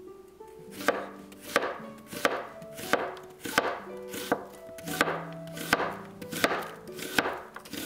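Chef's knife slicing an onion on a cutting board: about ten even chops, roughly three every two seconds, each a sharp knock of the blade through the onion onto the board.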